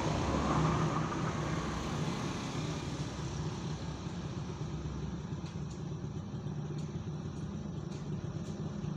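Steady low rumble of motor vehicles running in the background, slightly louder in the first couple of seconds. In the second half, a few faint light clicks of steel spokes knocking against the Honda CD70 front hub as they are threaded into its flange holes.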